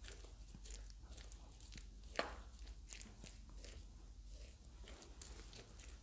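A spoon stirring julienned potato strips into thick besan (gram-flour) batter in a wooden bowl: faint, repeated soft scrapes and clicks, a few a second, with one sharper click about two seconds in.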